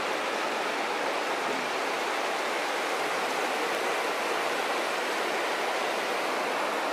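Rushing water, a steady, even roar with no breaks.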